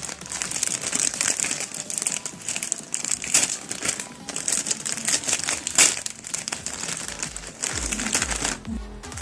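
Plastic wrapper bag of Sun Rice chocolate bars crinkling as hands open it and shake the individually wrapped bars out. Irregular crackly rustling, with a sharper crackle about six seconds in.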